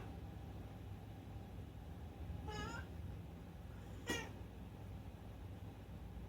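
A domestic cat meowing twice: a meow about two and a half seconds in, then a shorter, louder one about four seconds in.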